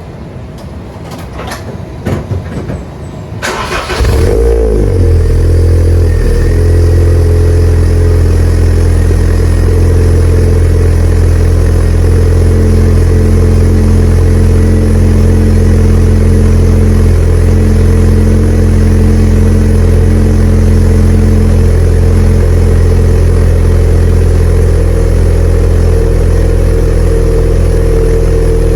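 A car engine with a freshly repacked Tanabe Hyper Medallion muffler: a few clicks, then the engine starts about four seconds in and settles into a loud, steady idle.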